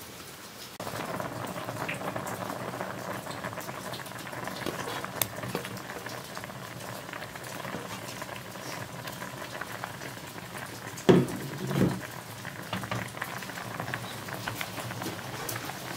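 Pot of tofu and vegetable soup boiling hard, bubbling steadily. Two short knocks close together a little past the middle.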